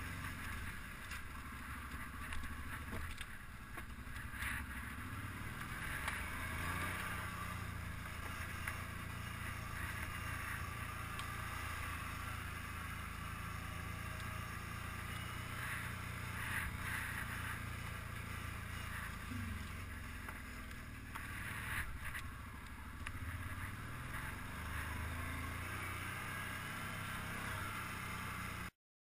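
ATV engine running while the quad is ridden. Its pitch shifts up and down with the throttle, with a noisy hiss and a few brief knocks over it. The sound cuts off suddenly near the end.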